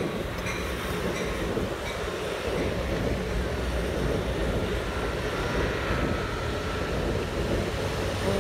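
Amtrak Pacific Surfliner bilevel passenger train passing close by, cab car leading. The steady rumble of steel wheels on rail grows louder, and faint wheel squeal comes in during the second half.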